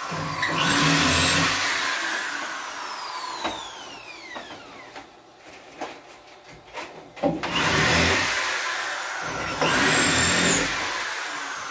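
Corded electric drill run three times in short bursts as the upper cabinet is fixed to the wall, its motor whine falling away as it spins down after each burst. A few sharp knocks come in the pause between the second and third runs.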